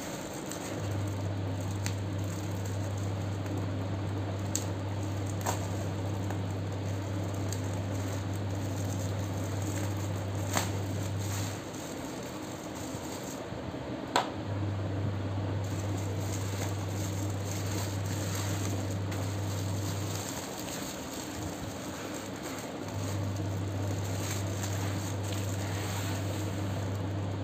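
Bubble wrap and plastic packaging crinkling and rustling as it is handled, with a few sharp clicks, the loudest about 14 seconds in. A steady low hum runs underneath, cutting out twice for a few seconds.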